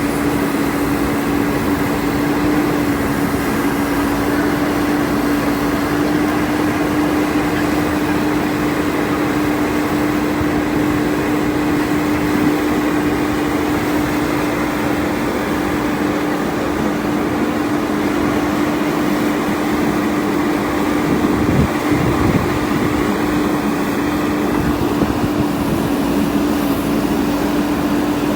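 JCB backhoe loader's diesel engine running steadily under work, with a constant hum and little change in speed.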